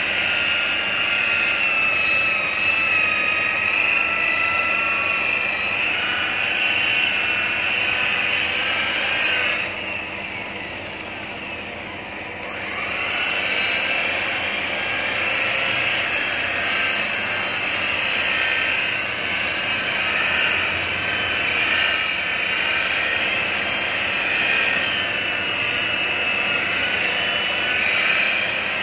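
Handheld electric rotary car polisher running with a steady high whine as its pad buffs the car's painted body panels. About ten seconds in, the motor slows and the whine drops in pitch and level, then it rises back up to full speed a couple of seconds later.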